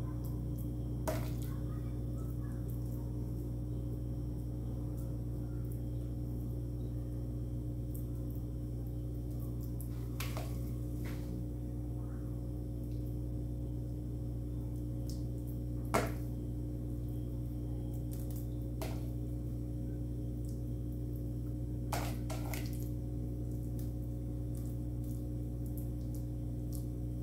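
A steady low mechanical hum with several even tones, with a few short soft clicks and knocks from food and a knife being handled, the loudest about two-thirds of the way in.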